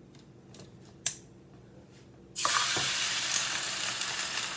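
A single light click about a second in. Then, a little past halfway, a loud steady sizzle starts suddenly: onions hitting hot oil in a skillet on a gas stove.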